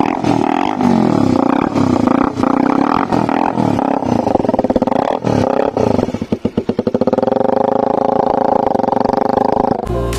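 Motorcycle with a loud modified exhaust being revved again and again, the engine note rising and falling. About six seconds in there is a quick stuttering run of pops, then a held high rev that cuts off suddenly near the end.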